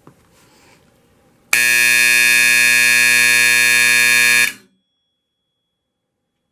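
Simplex 4040 flush-mount low-voltage AC fire alarm horn sounding one steady, loud blast for about three seconds, then cutting off sharply. A faint click comes just before it.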